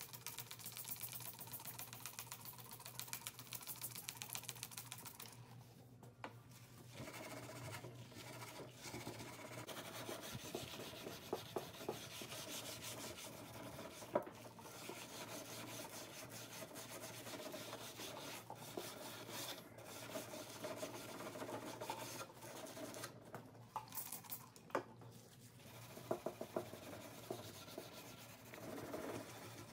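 A hand tool rubbing and scraping across a wooden furniture surface in continuous strokes, with a few sharp clicks and knocks along the way.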